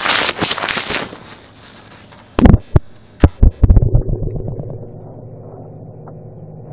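Rubbing noise right on a phone's microphone as creamer is wiped off it, then several sharp knocks as the phone is handled and set down on the counter. A steady low hum follows.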